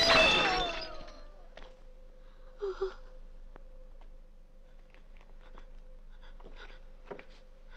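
Loud music stops within the first second. Then there is a quiet lull with a steady faint hum, one short voice-like sound a little under three seconds in, and a few faint clicks.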